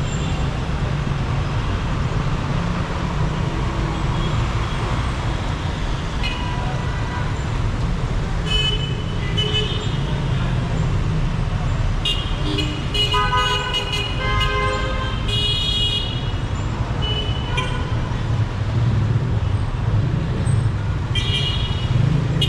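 Heavy city street traffic with a steady engine and tyre rumble, and vehicle horns tooting again and again; several horns sound together around the middle.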